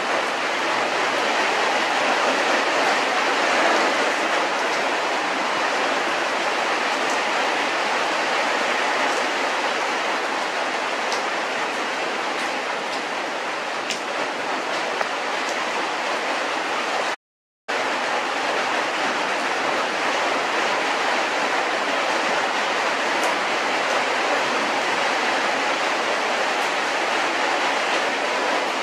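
Steady rushing noise with no clear pitch, like hiss or air noise, with a few faint clicks. It cuts out completely for a split second about seventeen seconds in.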